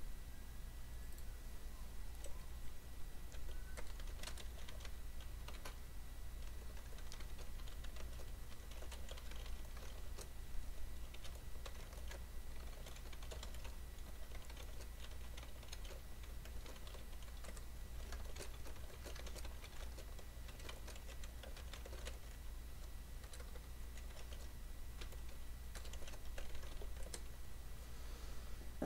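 Typing on a computer keyboard: scattered, irregular key clicks, over a steady low electrical hum.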